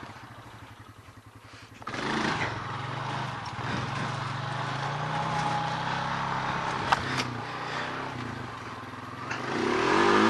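Four-wheeler (ATV) engine that jumps from a low run to hard throttle about two seconds in, running loud under load as the rider tries to pull a wheelie; the engine note eases and then climbs again near the end. A sharp click about seven seconds in.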